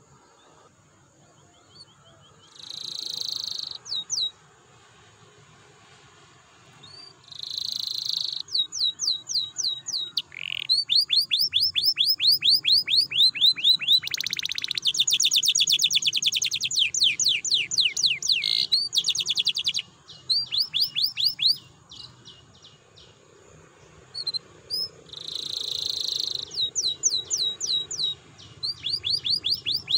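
Domestic canary singing in bouts: long rolling trills of rapidly repeated high notes, broken by a few harsher noisy notes, with short pauses between phrases.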